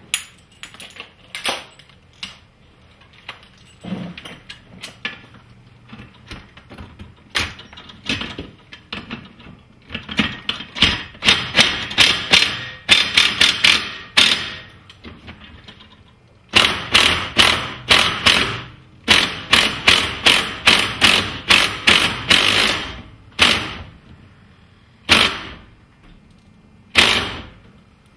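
Cordless impact driver hammering a lag screw through a steel garage-door hardware plate into a wooden door jamb. Scattered knocks come first, then long runs of rapid rattling impacts of several seconds each, and two short bursts near the end as the lag is snugged down.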